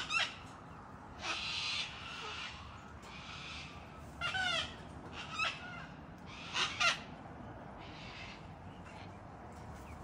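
Sulphur-crested cockatoo giving a run of short calls and chatter, about one every second or so: some harsh and noisy squawks, some squeakier pitched sounds with quick bends in pitch.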